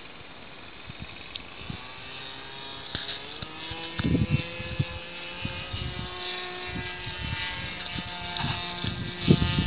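Model airplane's motor and propeller droning overhead, the pitch drifting slowly up and down. Low rumbling bursts join in from about four seconds in and again near the end.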